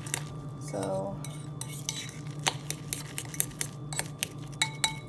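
A metal fork clinking and scraping against a ceramic bowl in repeated quick clicks, stirring riced cauliflower into beaten egg.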